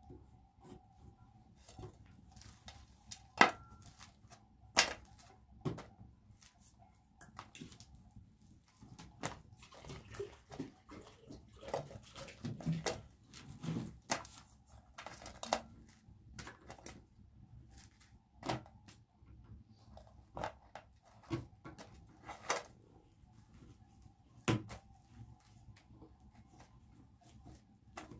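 Irregular light clicks and knocks from metal dishes and a plastic water jug being handled, with a few sharper clinks and a run of duller knocks about halfway through.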